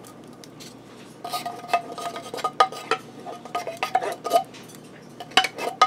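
Wooden spoon scraping and knocking inside a metal soup can, the can ringing with each stroke as the thick condensed soup is scraped out. There is a quick run of strokes from about a second in, then a few sharper knocks near the end.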